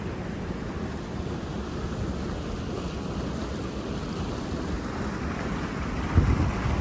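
Floodwater rushing steadily through a culvert on a swollen small creek. Near the end, wind buffets the microphone with low rumbling gusts.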